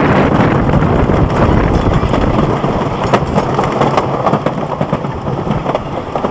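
Wooden roller coaster train running fast on its wooden track, wheels clattering and rattling, with wind buffeting the microphone.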